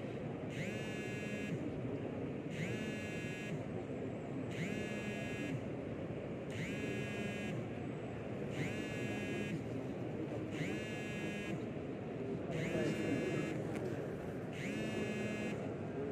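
An electronic beep repeating at an even pace, about once every two seconds, each beep short and buzzy, over the steady murmur of a large indoor crowd.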